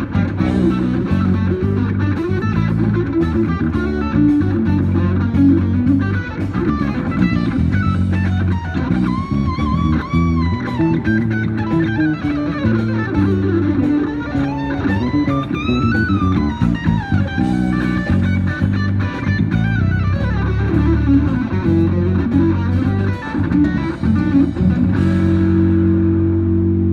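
Electric guitar played through a DV Mark amplifier rig: fast melodic lead lines with string bends and vibrato, settling into a held note near the end.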